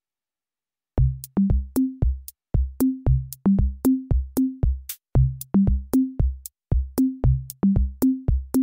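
Background music: an electronic drum-machine beat with short kick hits and pitched bass notes, starting about a second in.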